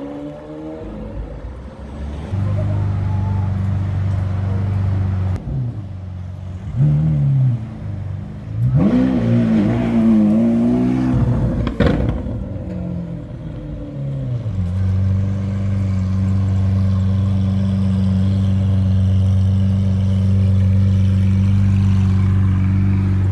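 Lamborghini Aventador SV Roadster's V12 idling with a deep steady hum, revved twice in the middle so the pitch rises and falls, with one sharp crack just after the second rev before it settles back to a steady idle.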